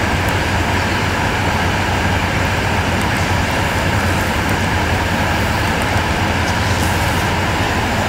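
Continuous carbonization furnace running: a steady mechanical drone with a strong low hum, unchanging throughout.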